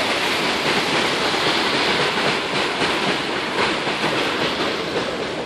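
Lybid river in flood after heavy rain: swollen brown water rushing and churning through its concrete channel and under a low bridge, overflowing its concrete banks. The rush is loud and steady.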